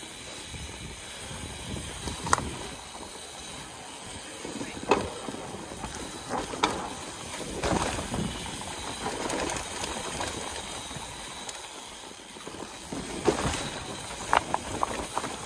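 Mountain bike descending a leaf-covered dirt singletrack: the tyres roll over leaves and dirt and wind rushes steadily over the microphone. Several sharp clunks and rattles come through as the bike hits bumps and roots.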